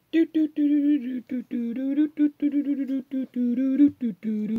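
A lone voice humming a tune in short, clipped notes, without any instruments.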